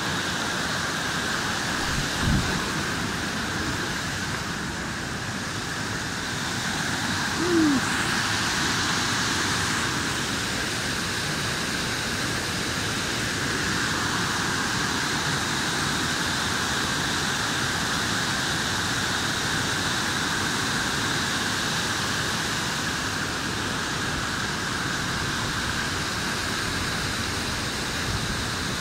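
River rapids and a waterfall, white water rushing steadily over rock ledges. A short low thump comes about two seconds in, and a brief falling low tone at about seven and a half seconds.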